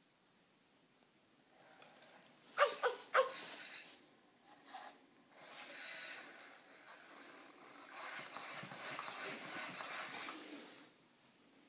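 Genibo SD robot dog playing dog sounds through its speaker: a quick run of about four short yelps two to three seconds in, then two stretches of hissing, breath-like noise, the second about three seconds long.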